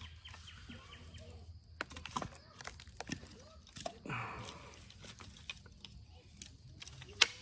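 Sharp, scattered clicks of Onondaga chert being pressure-flaked with an Ishi stick as flakes snap off the point, the loudest one near the end.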